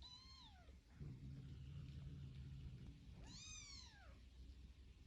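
Kitten meowing twice, high-pitched mews that rise briefly and then fall in pitch, about three seconds apart.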